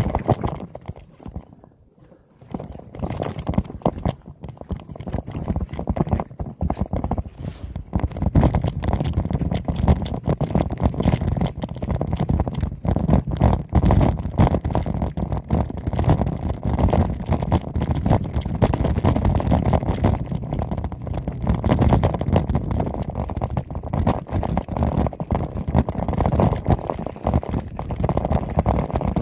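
Mountain bike rumbling and rattling over a rocky dirt trail at speed: tyres crunching on dirt and stones, with a dense run of knocks as the bike jolts over the rough ground. It starts about two seconds in and is louder from about eight seconds on.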